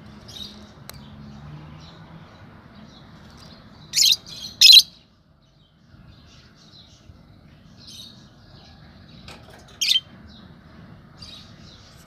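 Lovebirds chirping: soft scattered high chirps, with three louder sharp calls about four seconds in, just before five seconds and near ten seconds.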